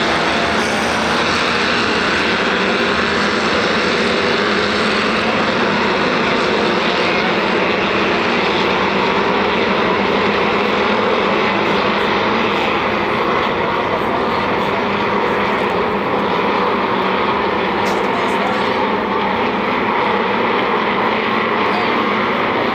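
Air-cooled Volkswagen flat-four engines of Formula Vee race cars running, a loud, steady, continuous drone.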